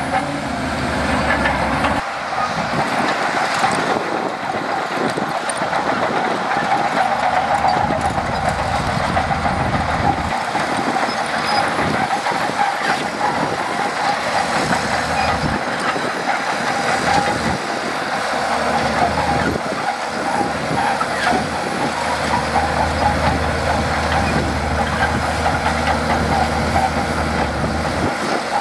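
Shantui DH17C2 crawler bulldozer working: its diesel engine running under load and its steel tracks moving, a continuous loud mechanical din.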